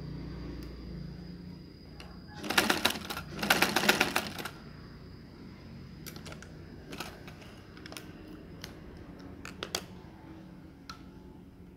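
Domestic sewing machine stitching in two short runs of rapid clatter a few seconds in, followed by scattered single clicks.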